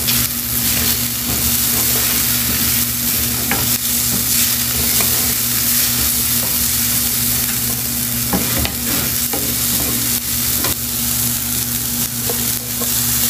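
Chopped peppers, onion, garlic and green seasoning sizzling in olive oil in a stainless steel frying pan, stirred with a wooden spoon. Now and then the spoon scrapes and taps against the pan.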